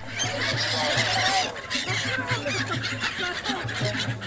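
A large flock of migrant birds calling together, many harsh squawks overlapping without pause.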